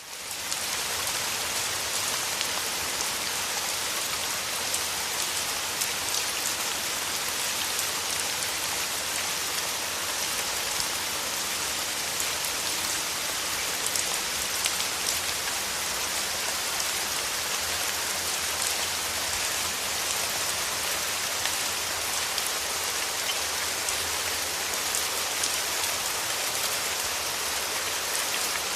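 Rain falling steadily, a dense even hiss of drops with faint tiny pattering ticks, unchanged in strength throughout.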